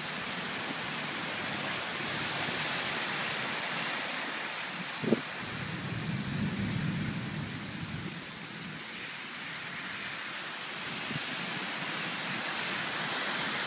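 Steady heavy rain and cars driving through a flooded road, the spray of water and tyre noise swelling as each vehicle passes. A brief sharp knock about five seconds in.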